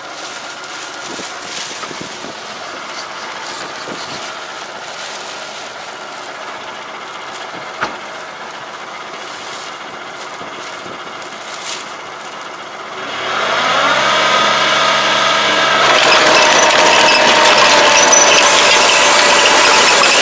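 Tractor engine running quietly at idle, then revving up about two-thirds of the way in and settling into a steady, louder run. A broad hiss joins a few seconds after the rev-up.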